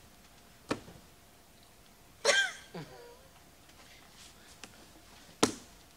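Mostly quiet, with handling noise from a bent gold metal hairpin leg on a faux-fur ottoman being pulled on by hand to straighten it: a click about a second in, a short high squeak a little after two seconds, and a sharp knock near the end.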